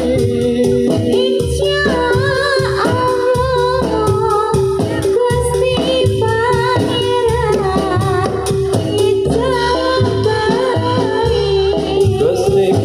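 A woman singing a Javanese melody with vibrato into a microphone, over live Kubro Siswo accompaniment with ringing gongs and a steady percussion beat, heard through the PA.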